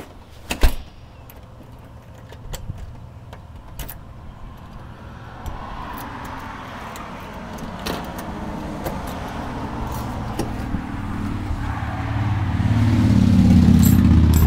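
A car passing by, its engine and tyre noise building steadily through the second half to a low engine hum near the end. A single sharp knock comes about half a second in.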